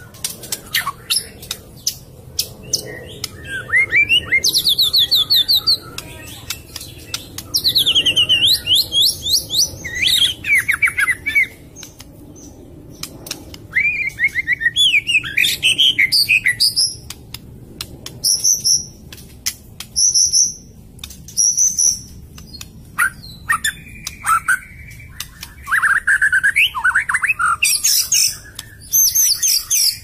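A songbird singing a long, varied song: fast trills and chattering runs of repeated notes, broken by short pauses, with sharp clicks scattered throughout.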